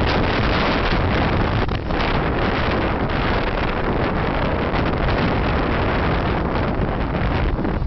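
Wind buffeting the microphone: a steady, loud rushing noise with no distinct events.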